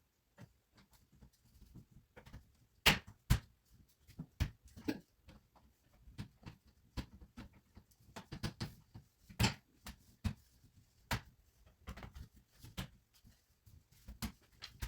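Irregular knocks and clicks of wooden plant-stand parts being handled and fitted together during assembly, a few sharper taps standing out.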